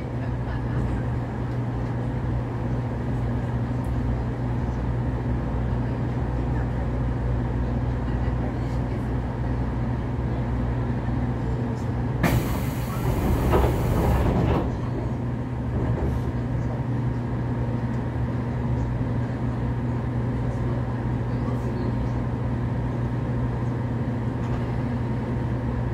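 Steady hum of a standing JR Kyushu 811 series electric train's onboard equipment, heard from inside the car. About twelve seconds in, a hiss of compressed air lasts about two seconds.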